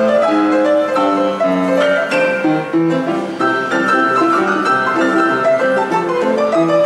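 Background music led by piano, with many overlapping held notes at a steady level.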